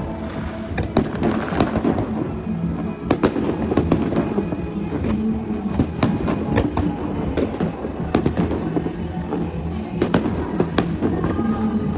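Aerial fireworks bursting and crackling, with many sharp bangs in quick, irregular succession. Music plays underneath with steady held low notes.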